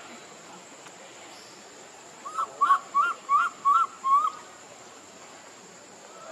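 An animal's call: five short hooting notes in quick succession, about two and a half a second, each rising and falling in pitch.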